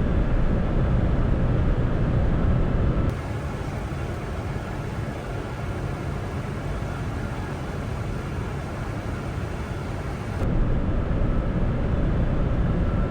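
Steady cockpit noise of a Boeing 747-400 on final approach, a low rumble of airflow and engines. About three seconds in it drops abruptly to a quieter, even hiss, and the louder rumble comes back abruptly near the end.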